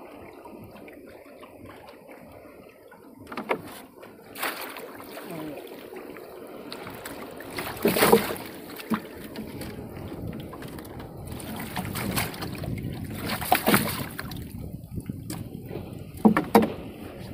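Fishing line and net hauled into a small wooden boat, with a run of knocks and thumps on the wooden hull and deck; the loudest thump is about eight seconds in, as the net holding a ray lands on the deck. Wind and lapping water run steadily underneath.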